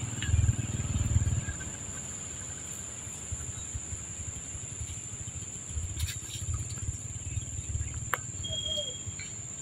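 Wind rumbling on the microphone in gusts, loudest at the start and again later, over a steady high insect drone. Near the end a young macaque gives a brief squeal.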